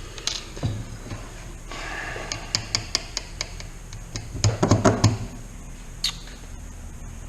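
Small hand tools and parts being handled on a work surface: scattered clicks and knocks, a quick run of clicks over rustling a couple of seconds in, and a louder cluster of knocks about halfway through.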